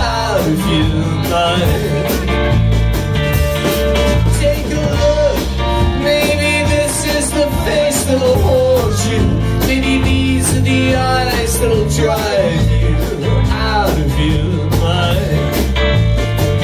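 Live indie rock band playing an instrumental passage: electric guitars and drums, with a bending lead melody line over a steady beat.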